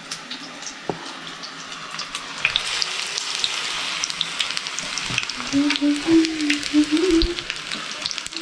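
Onion pakoras in gram-flour batter deep-frying in hot oil in a small iron pan, sizzling with a steady crackle that grows louder about two seconds in. A low voice sounds briefly in the second half.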